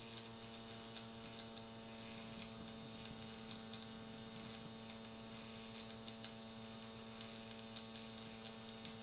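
A Philcraft Jenny Wren miniature alcohol-fired vertical steam engine running: light, irregular ticks and clicks, about two or three a second, over a steady low hum.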